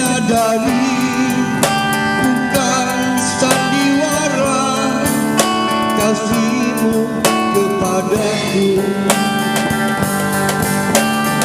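Live band playing an instrumental passage of a slow pop ballad, with guitar to the fore over a steady rhythm.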